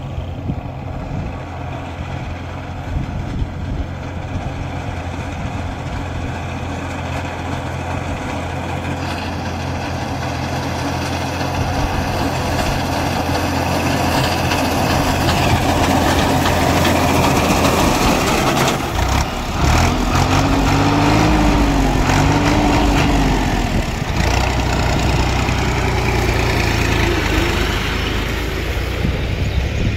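Tractor diesel engine running under load as it drives a front-mounted reaper binder through standing wheat, along with the machine's steady working noise. It grows louder as the tractor comes close, peaks past the middle, then eases off as it moves away.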